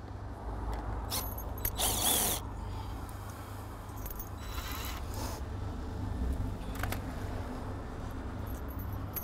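A cordless drill-driver spinning briefly about two seconds in as it backs out a fixing at the top of a uPVC door frame. Scattered clicks and rustling of small parts being handled follow, under a low steady rumble.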